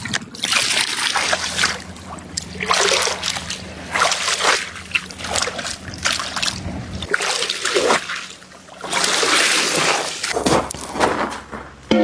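Water splashing and trickling in irregular bursts, over a faint steady low hum that stops about seven seconds in.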